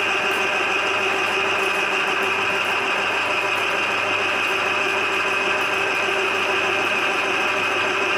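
Electric drain-cleaning machine running steadily with a constant motor whine, spinning its coiled spring cable down a clogged bathroom floor drain.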